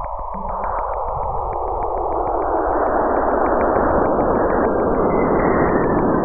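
Radio and plasma wave data from the Cassini spacecraft's RPWS instrument, converted to sound. A hissing band widens and swells, its low edge sinking and its high edge rising, with faint regular ticks running through it, several a second.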